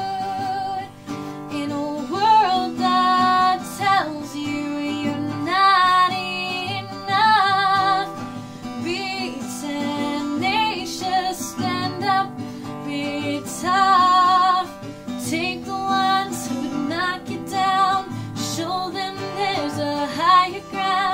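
A woman singing over a strummed acoustic guitar, her held notes wavering with vibrato.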